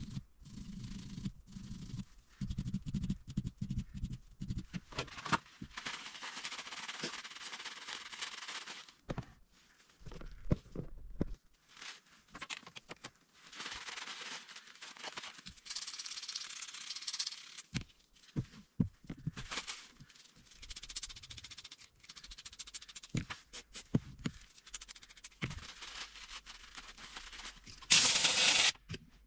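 Paper towel rubbing and rustling against small steel revolver parts, broken by frequent light clicks and knocks of metal parts being handled. Near the end comes a short, loud hiss of compressed air from an air blowgun, blowing the parts clean.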